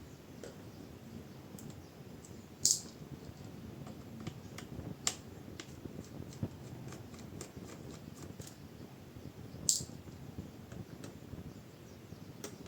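Small clicks and light scraping of a screwdriver working the screws out of a laptop's plastic bottom case. Two short, bright clinks, one a few seconds in and one near the end, and a sharper click about halfway through.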